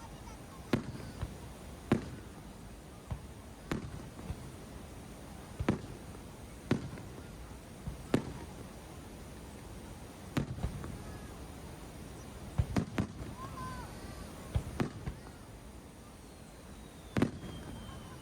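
Aerial fireworks shells bursting overhead: about a dozen sharp booms at uneven intervals of one to two seconds, two of them in quick pairs.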